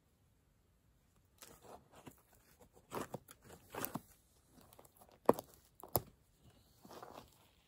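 Small hand digging tool scraping and chopping into loose, dry dirt, a series of uneven scrapes and crunches after a quiet start, with two sharp knocks about five seconds in and again a second later.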